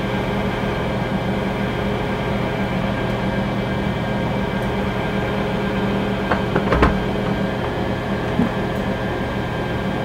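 Small benchtop wood lathe running steadily with a constant motor hum. A few sharp clicks or taps come from the work about six and a half to seven seconds in.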